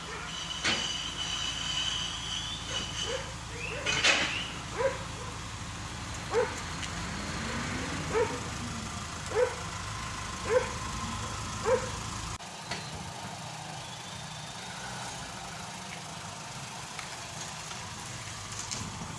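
A dog barking about half a dozen times, roughly once a second, over a steady low hum that drops off about two-thirds of the way through.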